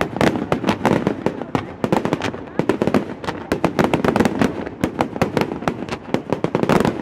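Fireworks display: a dense, rapid barrage of aerial shells and crackling stars going off, many sharp bangs and pops a second with no let-up.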